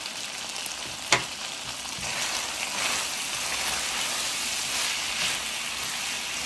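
Diced chicken and onion sizzling in oil in a nonstick frying pan over high heat, stirred with a plastic spatula. There is one sharp knock about a second in, and the sizzling and stirring grow a little louder from about two seconds in.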